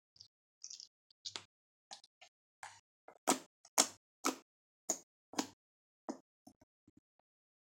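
Fluffy slime being pressed and squished by hand: an irregular run of short sticky pops and clicks, about two a second, loudest in the middle.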